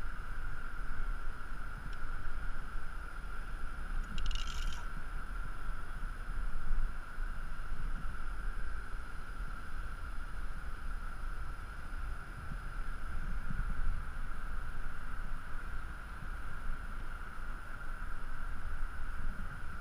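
Wind buffeting the microphone of a body-mounted action camera, a low rumble that rises and falls with the gusts, over a steady high-pitched tone. A brief hiss about four seconds in.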